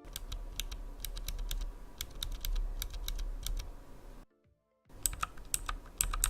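Typing on a Redragon Vara K551 mechanical keyboard, whose clicky switches are equivalent to Cherry MX green: a quick, irregular run of sharp key clicks. It breaks off briefly a little past four seconds in, then starts again.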